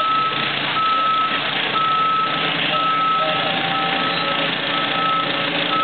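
Heavy-equipment back-up alarm beeping about once a second over the steady noise of a diesel machine running.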